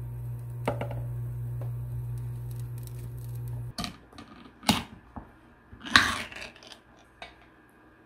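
A steady low hum from an induction cooktop heating a pot of water, with a light tap about a second in; the hum stops just before four seconds. Then a pull-tab tuna can is opened: sharp clicks and a pop as the ring is lifted, and a louder tearing scrape as the metal lid peels back, loudest about six seconds in.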